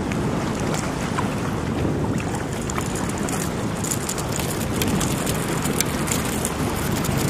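Wind buffeting the microphone over water slapping against a kayak hull, a steady low rumble. From about halfway through, a scatter of small sharp clicks and splashes joins it.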